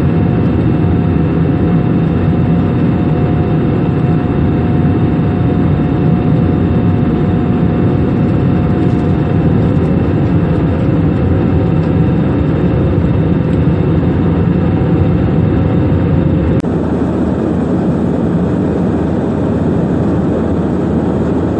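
Aeroplane engines running loudly and steadily during take-off, a deep rumble with a few steady tones over it. About three-quarters of the way through, the sound changes abruptly and carries on slightly quieter.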